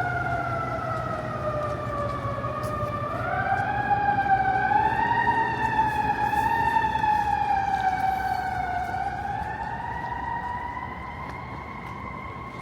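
An emergency vehicle siren wailing, its pitch sliding slowly and unevenly up and down. It is loudest in the middle and fades toward the end, over a steady low hum of traffic.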